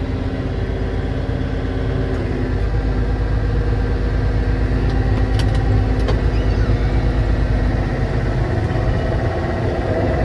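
Farm tractor engine running under load while its bale spear lifts and moves a round-bale feeder. It grows louder a couple of seconds in and eases off near the end.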